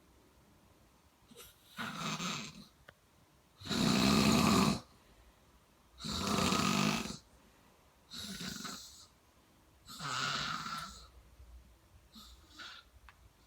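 Snoring: six snores at about one every two seconds, the second one the loudest and the last one faint.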